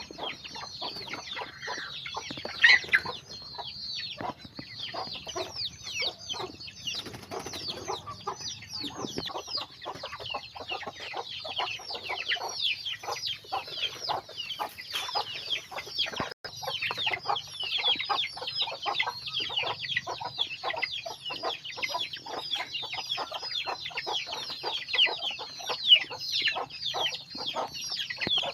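A flock of chickens: a dense, continuous chorus of high, downward-sliding chick peeps, with lower clucking from the hens underneath and a couple of louder calls.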